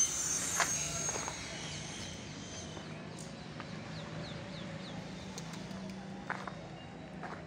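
Birds chirping outdoors: a run of short, falling chirps about three to four seconds in, over a steady low hum. A few footsteps on bare concrete are heard, one near the start and a couple near the end.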